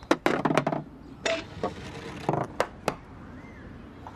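A golf ball knocking and clattering through wooden crazy-golf obstacles: a quick run of clicks, then several single sharp knocks about a second apart or less.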